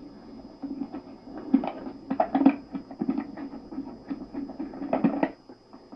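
Irregular bumps, taps and scrapes right at a camcorder microphone as it is handled and pressed close against something, heard from an old home video tape played back through a TV speaker.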